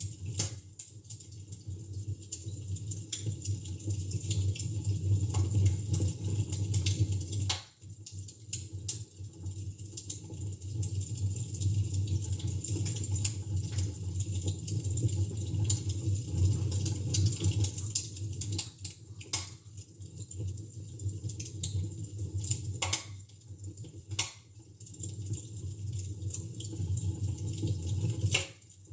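Fire crackling in a fireplace: a constant run of small snaps and ticks over a low steady rumble, with a few louder sharp pops scattered through.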